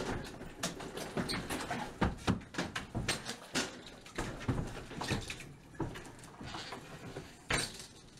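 A front door and its glass storm door being handled and pushed shut: a run of irregular knocks, clicks and rattles, with one louder bang near the end.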